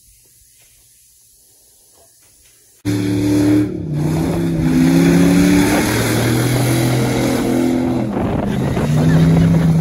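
A full-size SUV's engine revving hard, its pitch climbing and dropping, as the wheels spin and tear through grass and mud. It starts suddenly about three seconds in and cuts off just before the end.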